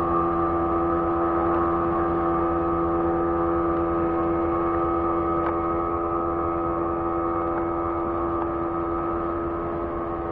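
A passing boat's engine running with a steady drone, slowly getting quieter toward the end.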